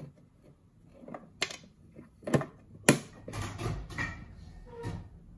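A handful of sharp clicks and knocks from a hard plastic insect case being handled and set down on a wooden table, the loudest about three seconds in.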